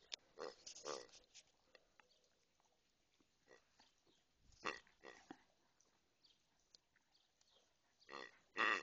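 A grey toy pig grunting in short oinks as a German Shepherd squeezes it with its mouth and paws: a few near the start, a couple midway, and the loudest near the end.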